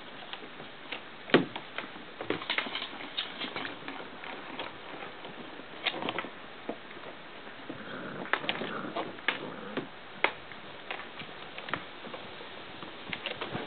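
Puppies' claws scrabbling and tapping on a hard plastic play shell as they climb over it, with irregular clicks and knocks and one louder thump about a second and a half in.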